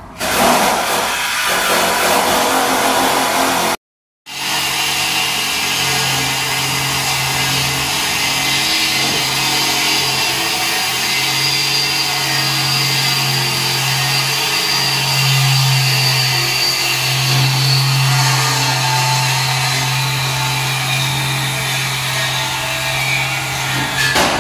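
Power tool running steadily: a dense hiss with a high whine over a low hum, cut off briefly about four seconds in.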